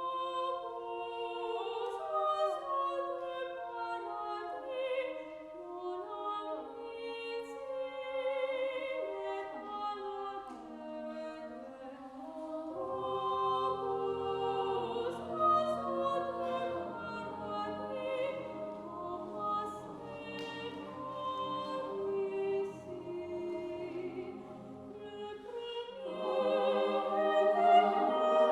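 Mixed chamber choir singing slow, sustained chords a cappella, with a mezzo-soprano solo. Lower voices join about halfway through, and the singing swells louder near the end.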